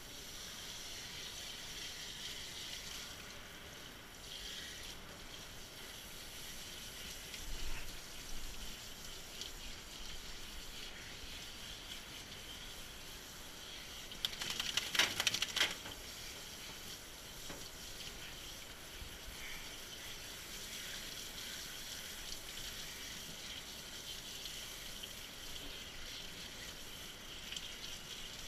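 Water running from a grooming-tub hand sprayer over a wet dog's coat, a faint steady trickle. About halfway through there is a brief louder burst of clattering.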